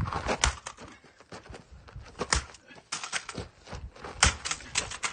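A chainsaw sharpening tool being bashed hard: an irregular series of sharp knocks and cracks, several in quick clusters, as it holds up without breaking.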